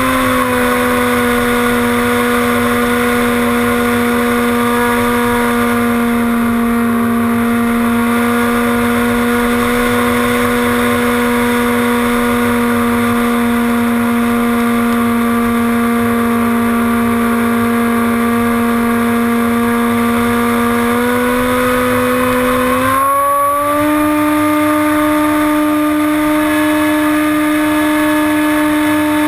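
Electric motor and pusher propeller of a Hobbyking Bixler RC glider, heard from on board in flight: a steady whine at one pitch that steps up in pitch twice, about three-quarters of the way through.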